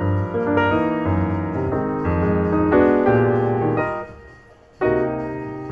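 Background piano music, a run of single notes and chords; it fades briefly about four seconds in and picks up again just before five seconds.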